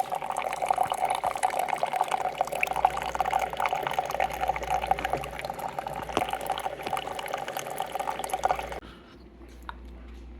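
Liquid running and pouring into a container with a fine crackle, then cutting off suddenly near the end.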